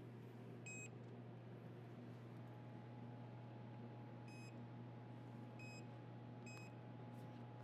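Four short electronic beeps from a Fujikura FSM-60S fusion splicer, spaced unevenly, over a steady low hum. A faint steady tone comes in about two seconds in.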